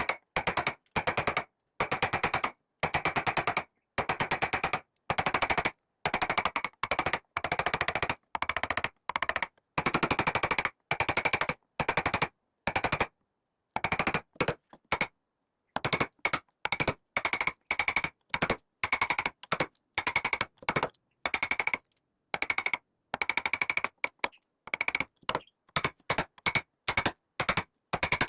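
Rapid drumming on wood: quick rolls of many fast strikes in short bursts, each burst cut off by silence, with a ringing knock in every strike.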